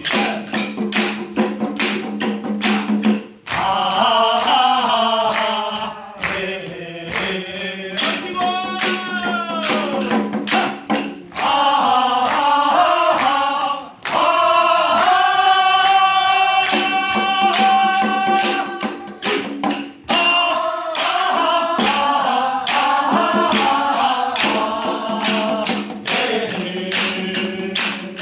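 Korean traditional singing (sori) by several voices with no drum, and sharp taps sounding in time throughout.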